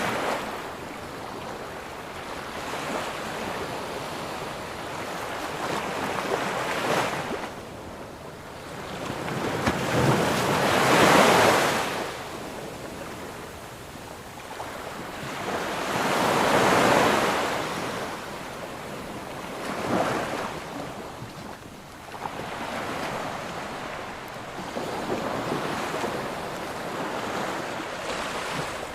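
Ocean waves breaking on a beach, surf swelling and fading in repeated surges every few seconds, the two biggest breaks about a third and halfway through, with some wind noise on the microphone.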